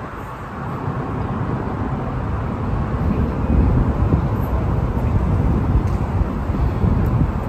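Road traffic rumbling under an elevated highway, with a large SUV driving past close by, loudest about three and a half to four and a half seconds in.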